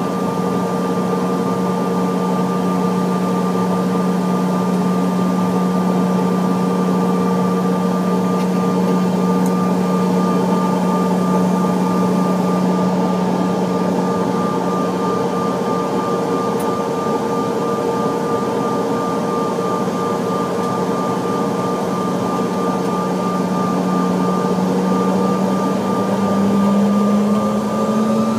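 Jet airliner's engines at low power heard from inside the cabin: a steady hum with a whine above it, over the rush of cabin air. Over the last few seconds the pitch starts to rise as the engines spool up for takeoff.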